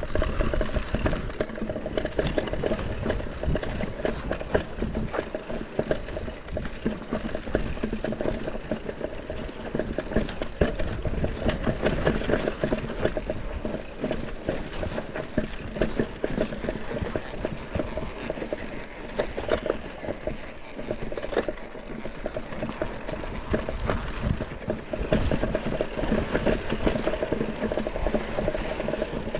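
Mountain bike riding downhill on a rough trail: continuous crunch and rattle of tyres over stones and gravel, with dense clicking from the bike's frame and chain over a low rumble.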